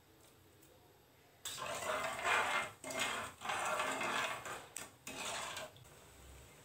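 Flat metal spatula scraping and stirring in a metal kadai as khoa is stirred into sugar syrup: a run of scraping strokes with short breaks for about four seconds, after a quiet first second or so.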